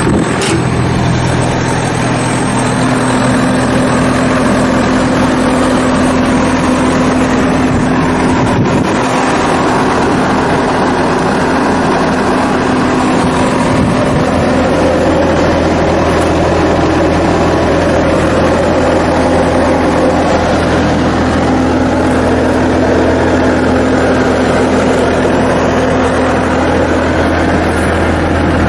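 2009 Bobcat T190 skid steer's diesel engine running steadily.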